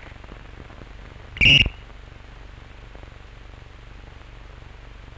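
Referee's whistle: one short, shrill blast about a second and a half in, calling a foul. Under it a steady low hum and hiss.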